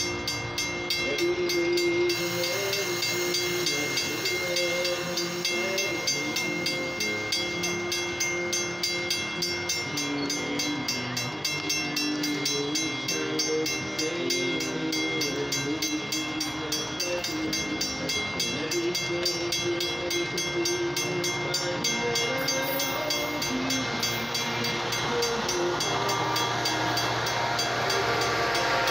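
Metra bilevel passenger coaches rolling past over a grade crossing: a steady rumble of wheels on rail with wavering whining tones, and a repeating ring that fits the crossing bell. The rush grows louder near the end.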